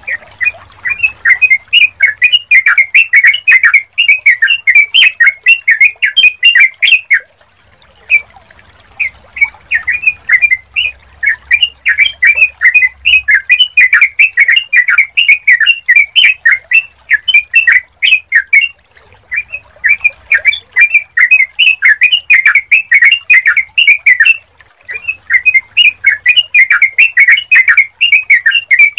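Yellow-vented bulbuls chattering: rapid runs of short, bubbling chirps in long bouts, broken by brief pauses about seven, nineteen and twenty-four seconds in.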